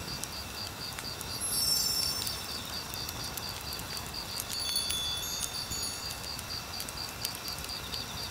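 Crickets chirping steadily in an even pulse, with high, light chime tinkles twice, about two and five seconds in.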